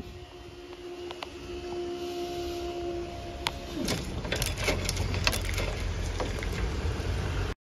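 Level crossing barrier's drive motor whining at a steady pitch as the boom rises, then falling away in pitch about four seconds in as the boom reaches upright. This is followed by a low rumble with scattered clicks, which cuts off abruptly just before the end.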